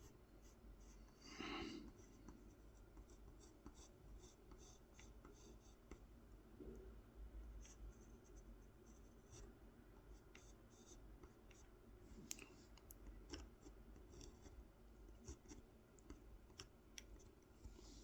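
Faint, intermittent scratching strokes of drawing on a carved wooden honey dipper as a design is sketched freehand.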